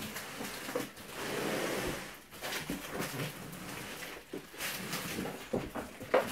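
Large cardboard box being handled on carpet: its flaps pulled open and the box shifted, a run of irregular rustles, scuffs and light knocks, with a longer rustling noise about a second in.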